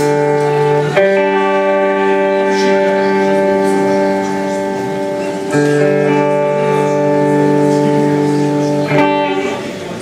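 Live band playing a slow song intro of long held chords, which change about a second in, at about five and a half seconds and again near nine seconds, then thin out near the end.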